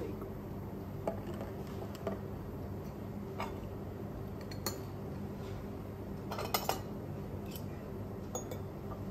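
Forks and knives clinking and scraping against ceramic plates as semla buns are cut and eaten, a handful of scattered clinks with the loudest, a quick double clink, about two-thirds through. A steady low hum runs underneath.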